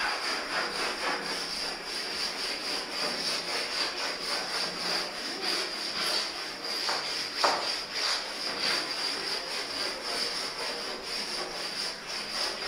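Paint roller worked over a wall or ceiling: continuous scratchy rubbing strokes with a steady high-pitched whine under them, and one sharper scrape about halfway.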